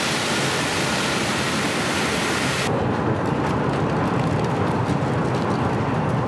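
Dried corn kernels pouring from a sack onto a wire-mesh screen, a steady rushing hiss that stops about two and a half seconds in. After that the stone mill's belt-driven machinery runs on with a steady lower rumble.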